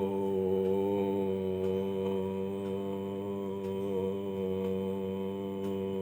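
Voice chanting "Om" as a long, steady low drone, its tone wavering slightly about four seconds in.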